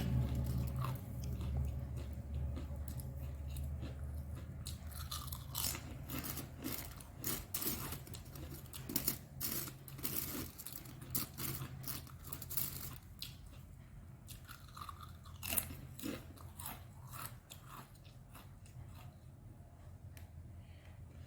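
Close-up crunching and chewing of a crunchy snack, with many sharp crunches that come thickest in the middle and thin out towards the end, over a low steady hum.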